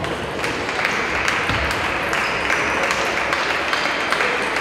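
Audience applause, starting about half a second in and tailing off near the end.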